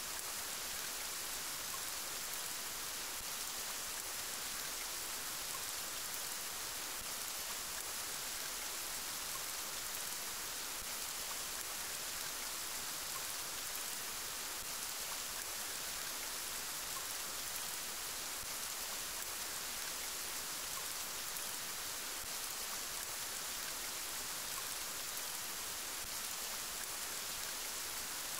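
Steady rain falling: an even, unbroken hiss, brighter in the high range than the low.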